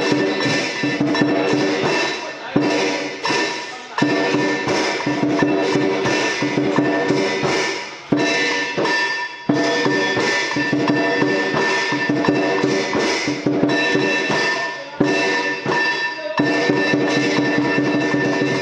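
Instrumental background music with sustained melodic tones and a busy percussion part, phrases breaking off briefly every few seconds.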